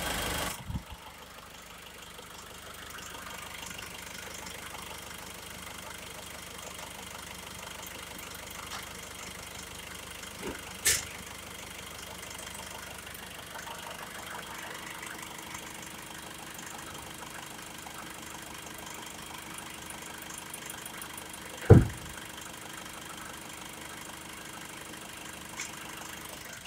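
Nissan D40 Navara's 2.5-litre four-cylinder turbo-diesel idling steadily. A sharp click comes about eleven seconds in, and a louder thump about twenty-two seconds in.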